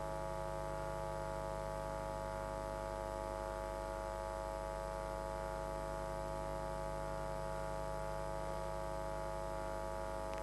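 Steady electrical mains hum and buzz: several unchanging tones held over a faint hiss.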